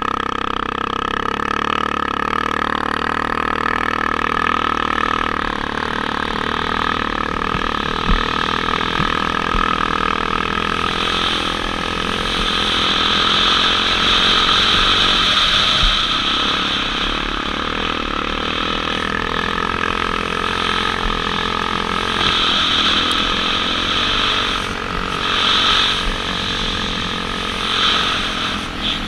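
Motocross bike engine running steadily at speed while riding on beach sand, with a few swells in loudness near the end.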